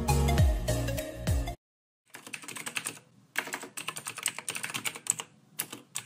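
Background music that cuts off suddenly about a second and a half in, then a keyboard-typing sound effect: runs of rapid key clicks with short pauses as a title is typed out.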